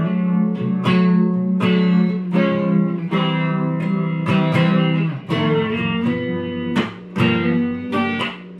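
A guitar playing the introduction of a bluesy song, strummed chords struck in a steady rhythm of about one to two strokes a second, each ringing out.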